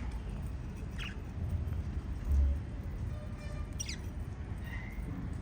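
Small pet parrots giving short, sharp chirps that fall steeply in pitch, two of them about three seconds apart, over a steady low rumble. A brief low thump sounds between them.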